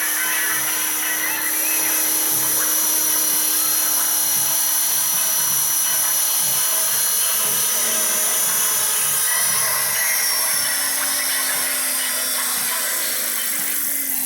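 RC Jet Ranger scale helicopter's motor and rotors whining steadily; the pitch drops gradually over the last few seconds.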